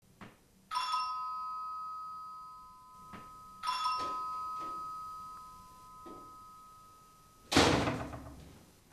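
Two struck bell-like chime notes about three seconds apart, each ringing on and fading slowly. Near the end comes a loud, sudden thump that dies away over about a second.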